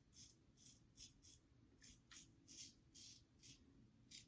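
Faint, quick scratchy strokes of a GEM Pushbutton single-edge safety razor scraping stubble through lather, about two or three strokes a second.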